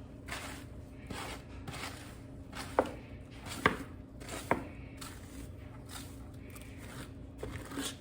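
Detangler brush stroked repeatedly through a wet, shampooed wig: soft swishes about every half second, with three sharp taps near the middle.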